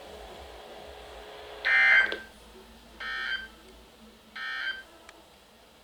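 Emergency Alert System end-of-message data tones: three short buzzing bursts about 1.3 seconds apart, closing the warning broadcast.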